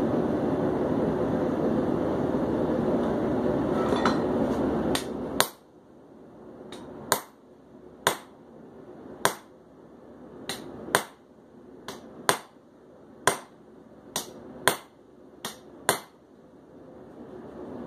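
Propane forge running with a steady rushing noise, which drops away about five seconds in; then about a dozen sharp hammer blows on hot steel at the anvil, roughly one a second, flattening a spot on a forged leaf with a punch.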